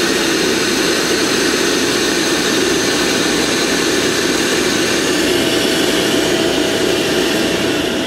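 HTP Munchkin boiler's combustion (induction) blower running steadily after a failed ignition try: the gas valve opened but no flame lit, the F09 flame sense failure. A faint steady tone joins about five seconds in.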